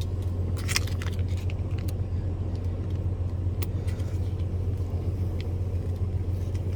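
Steady low rumble of a parked truck idling, heard from inside the cab, with a few light clicks and rustles of food packaging being handled.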